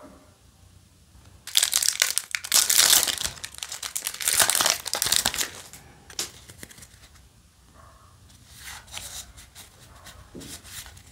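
Foil wrapper of a Yu-Gi-Oh! booster pack crinkling loudly as it is torn open, for about four seconds starting a second and a half in. It is followed by softer rustling of the trading cards being handled.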